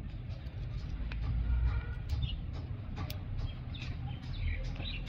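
Faint, light clicks of a thin steel oil-control ring rail being worked by hand into the groove of a Suzuki Cultus 1000cc piston, over a steady low background rumble, with a few faint high chirps.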